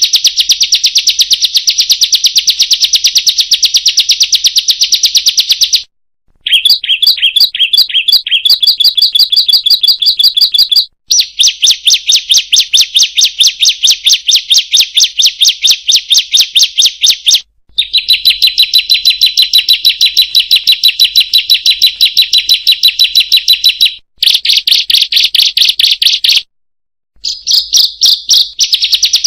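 Ciblek (bar-winged prinia) song played as a bird-keepers' lure track: loud, rapid, high repeated chirping notes in long runs. The song breaks off abruptly several times, as in an edited, looped recording.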